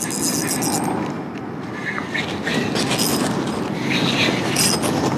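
Spinning reel being cranked steadily while fighting a hooked pink salmon.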